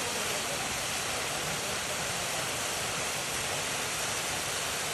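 A waterfall's falling water rushing steadily, an even hiss with no breaks.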